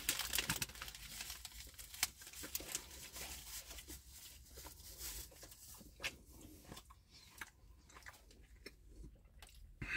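Paper burger wrapper crinkling and rustling in the hands while a pulled pork burger is bitten and chewed: irregular soft crackles, busiest in the first couple of seconds, then sparser clicks.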